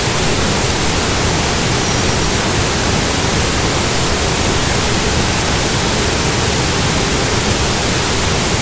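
Water of a small waterfall rushing steadily: an even, loud hiss with no breaks.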